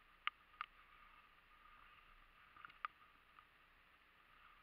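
Near silence with faint hiss, broken by a few short, sharp clicks: two close together near the start and one more about three seconds in.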